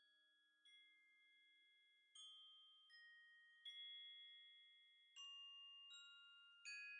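Faint background music of slow, bell-like mallet notes, one struck about every second, each ringing on, growing gradually louder as it fades in.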